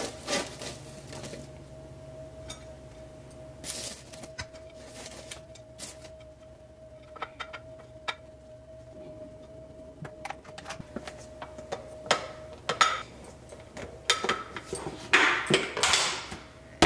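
Utensils clinking and scraping against dishes and containers at irregular intervals while food is portioned out on a kitchen scale, busier near the end, with a faint steady hum underneath.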